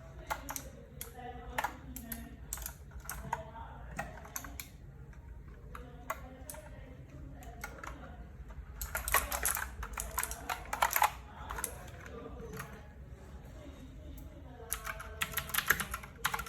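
Fuhlen D87s RGB mechanical keyboard with clicky Huano Blue switches being typed on: scattered single keystrokes, then a fast run of typing about nine seconds in and another near the end.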